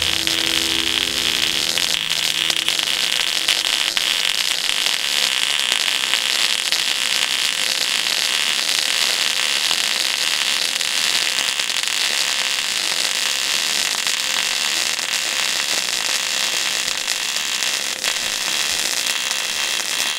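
MIG welding arc from an Eastwood MIG 250 running .025 wire with 75/25 argon-CO2 shielding gas at about 18 volts, sounding as a steady, even crackle throughout a vertical-up weave weld on steel.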